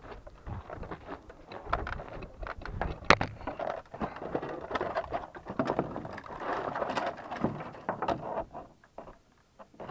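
Wind buffeting the microphone with irregular rustling and handling knocks, one sharp click about three seconds in, going quieter near the end.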